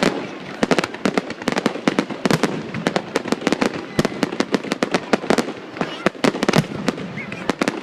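Fireworks display: a dense barrage of sharp bangs and crackles, several a second, without a break.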